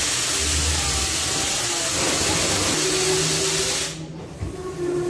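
Loud, steady hiss of compressed air venting from the train's air brake system, cutting off suddenly about four seconds in.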